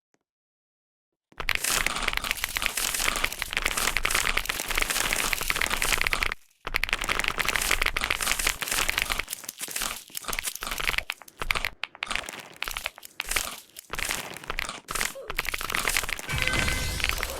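Computer keyboard being typed on very fast, a dense, unbroken clatter of keystrokes that starts about a second in and breaks off briefly near the middle.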